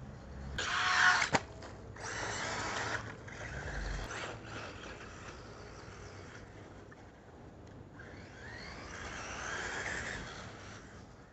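Brushless electric motor of a Losi Mini-T 2.0 RC truck whining in repeated bursts as it speeds up and slows down, the pitch rising and falling near the end. There is a single sharp knock about a second and a half in.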